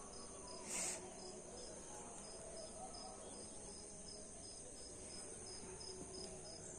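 Insects in garden shrubs give a steady high-pitched drone with a regular short chirp about three times a second. A brief burst of noise comes about a second in.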